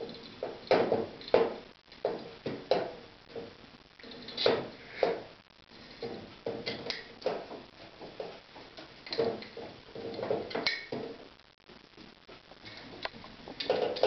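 Cockatiels pecking and cracking seed at the cage feeder: irregular clicks and light clatter in bunches, with a few sharper, louder knocks among them.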